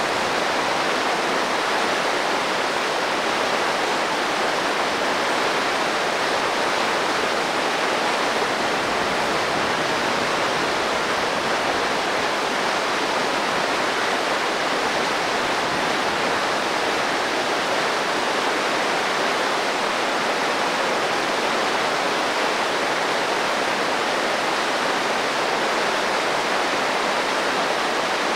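Clear Creek's whitewater rapids rushing steadily over boulders, a constant even roar of water.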